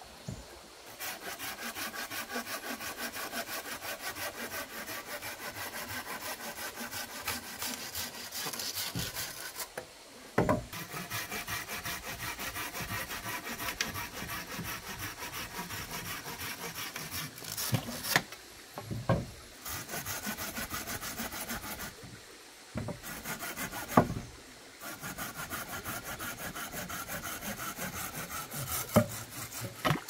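Hand saw cutting wood in quick, even strokes, in long runs broken by short pauses, with a few sharp knocks between the runs.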